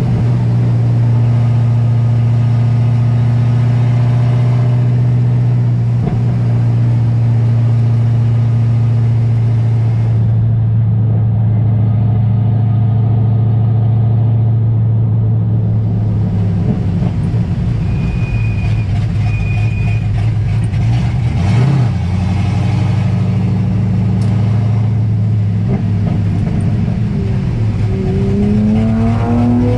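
LS V8 engine of an LS-swapped Nissan 240SX S14 drift car, running at a steady speed for about the first half, then revving up and down, its pitch climbing near the end.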